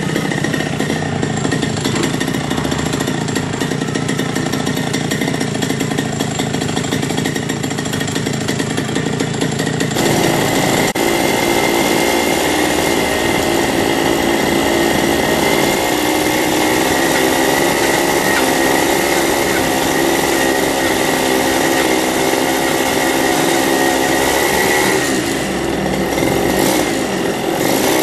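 A small bike engine running continuously. It revs up sharply about ten seconds in and holds the higher speed, then eases off briefly near the end before picking up again.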